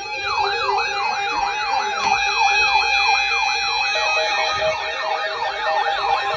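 Siren in a fast yelp: a rising-and-falling wail repeating about three times a second, over steady held tones.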